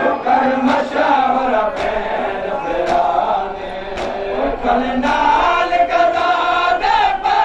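Men's voices chanting a Saraiki noha (Shia lament) in chorus, with sharp slaps about once a second from the mourners' rhythmic chest-beating (matam).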